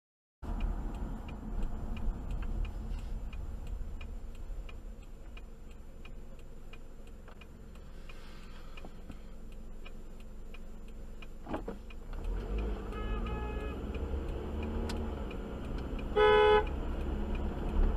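Car interior with a steady low engine and road rumble and a faint regular ticking, like a turn-signal indicator, in the first half. Near the end comes a short, loud car horn blast, with a fainter pitched beep a few seconds before it.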